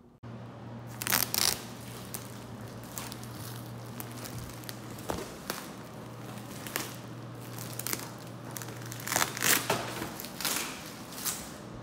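Plastic wrapping crinkling and crackling in irregular bursts as plastic-wrapped bedding is handled, over a steady low hum.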